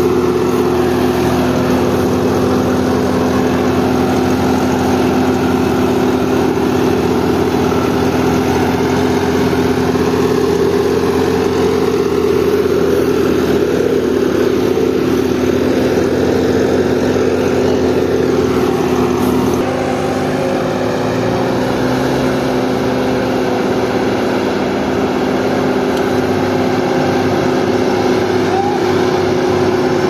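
Diesel engine of a small tractor running steadily under heavy load as it tows a combine harvester by a cable, straining hard enough to lift its front wheels. The engine note shifts about two-thirds of the way through.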